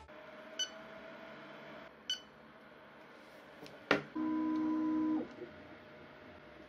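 Mingda Magician X 3D printer's touchscreen beeping: two short beeps, a click just before four seconds in, then a buzzer tone held for about a second as a print starts.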